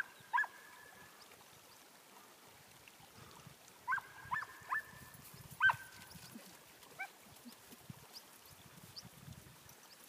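A dog barking and yelping in short high-pitched bursts while chasing a bird, faint with distance: two barks at the start, a run of four about four to six seconds in, then one more a second later.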